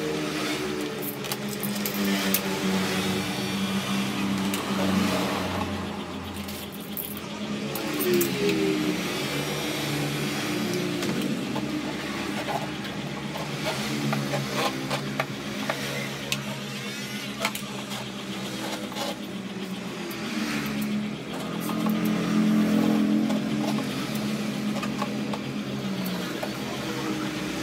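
Motor vehicle engines running and revving, their pitch slowly rising and falling, with light clicks from a plastic scooter body panel being handled.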